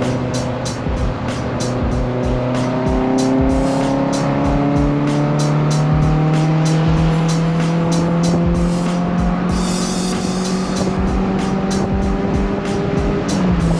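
VW Golf Mk1 1.8 16V four-cylinder on twin Weber carburettors, heard onboard, pulling in gear with the revs climbing slowly. Near the end a gear change drops the revs. A steady beat of music plays alongside.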